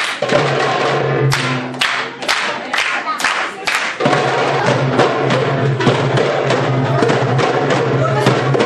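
A group of darbukas (goblet drums) played together by hand. For the first four seconds the strokes are separate and sharp over a low steady tone; then the playing turns into a fast, unbroken beat.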